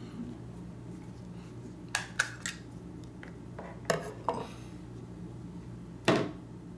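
Fixed-blade combat knives handled on a wooden tabletop: a few light clicks and taps of blade and polymer handle against wood about two to four seconds in as a knife is turned and laid down, then one louder knock about six seconds in.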